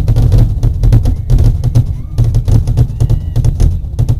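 Fireworks finale barrage: aerial shells bursting in rapid succession, several sharp bangs a second, over a steady low rumble, heard from inside a truck cab.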